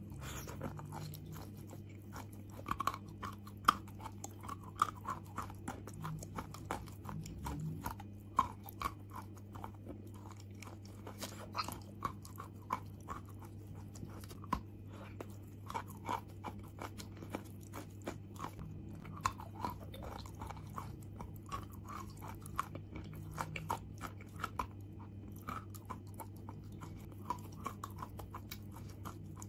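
Close-up crunching and chewing of chunks of eating chalk, with many irregular sharp crunches as the pieces are bitten and ground, over a steady low hum.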